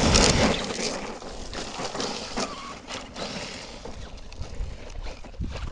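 Homemade 6S brushless RC monster truck driving on rough ground, its tyres and drivetrain making a noisy rush. It is loudest in a burst right at the start, then rises and falls as the truck moves.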